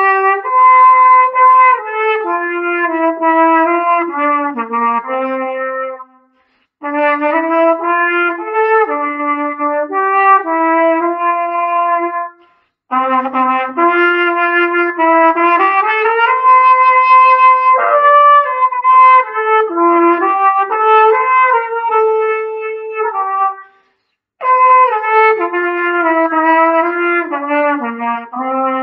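Unaccompanied cornet solo: a single brass melody line played in phrases, with short breaks for breath about six seconds in, about twelve seconds in and near the end.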